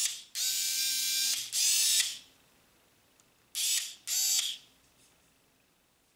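Narex AS 3.7-Li Hybro cordless screwdriver (3.6 V, 280 rpm) running unloaded in short bursts, switched between its forward and reverse directions. There are five bursts of half a second to a second, each starting with a brief rising whine as the motor spins up, with a pause of about a second and a half before the last two.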